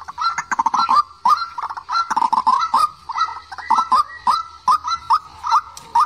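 White-breasted waterhen calling: a rapid, continuous run of short, hooked notes, several a second, one overlapping the next.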